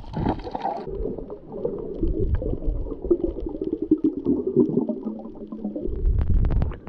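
Muffled underwater sound of water rushing and bubbling around a submerged camera as a snorkeler dives and moves near it. About six seconds in comes a cluster of sharp clicks and a louder low rush.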